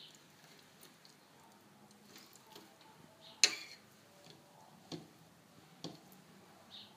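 Knife blade knocking against a glass dish as membrane is cut from raw liver: a sharp click about halfway through, then two lighter ones about a second apart, with faint small ticks in between.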